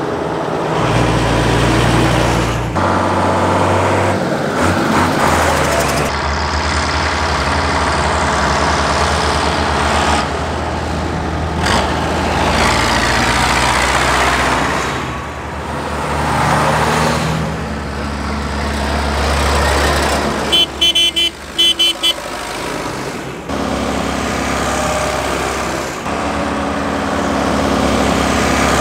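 Mercedes-Benz MB trac tractors and Unimog trucks driving past one after another, their diesel engines growing louder as each approaches and fading as it pulls away. About two-thirds through there is a short burst of rapid, high-pitched toots.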